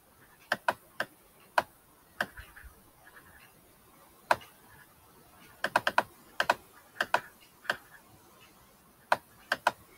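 Scattered sharp clicks from a computer mouse and keyboard being worked, some single and some in quick runs of three or four.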